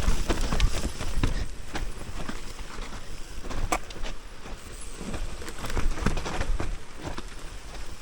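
Mountain bike riding down a muddy, slick trail: a steady low rumble with many irregular knocks and rattles as the bike runs over the rough ground.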